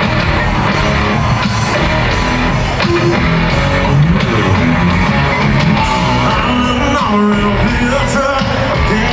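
Live country-rock band with electric guitars and a lead vocal, played loud through a stadium sound system and heard from among the crowd.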